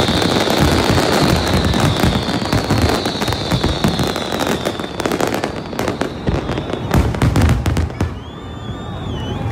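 Fireworks display going off in rapid succession: dense crackling and bangs of bursting shells, with a long high whistle that slowly falls and fades over the first half. Near the end the bangs thin out and a wavering high whistle is heard.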